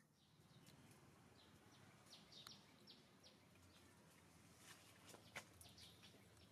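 Near silence with faint outdoor ambience: a run of short, high chirps, each sliding down in pitch, about two to three seconds in, and a couple of soft clicks.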